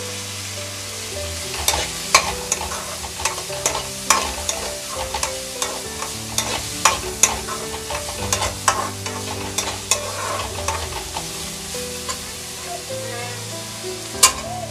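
A spatula scrapes and clinks against a steel pan as chopped onions, tomato and green chillies are stirred while frying in oil, over a light sizzle. The clinks come quickly from about a second and a half in, thin out, and end with one loud clink near the end.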